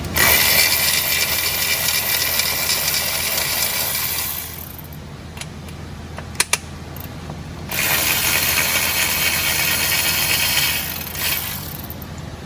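A power ratchet runs in two long spells of about four and three seconds, spinning out E10 Torx bolts, with a couple of sharp metallic clicks between the spells.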